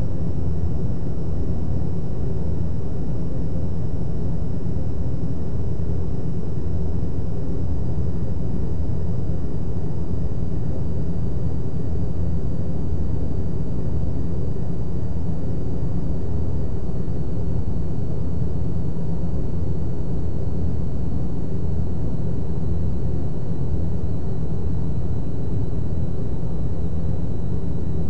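Steady low rumble with a hiss over it, unchanging throughout, and a faint high whine that slowly glides down in pitch.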